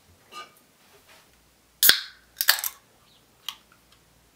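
A few sharp clicks and snaps as the lid of a can is worked off by hand: one loud snap about two seconds in, a quick cluster of clicks half a second later, and a smaller click near the end.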